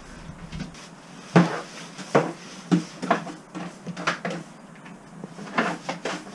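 Irregular knocks and clatters of hard objects being handled, about eight in all, some in quick pairs.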